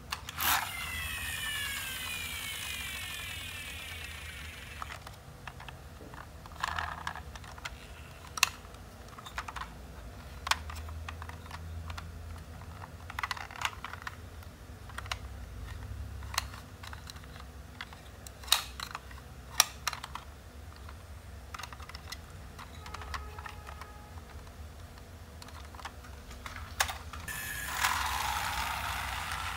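Plastic toy garbage truck being handled: scattered sharp clicks and knocks of its plastic parts. A louder whirring rush comes about half a second in and again near the end, as the toy's wheels roll on the hard tile floor.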